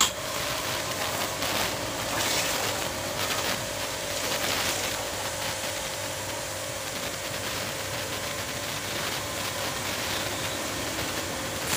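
Electric pressure washer running, a steady pump whine under the hiss of its water jet spraying onto a motorcycle. It starts abruptly.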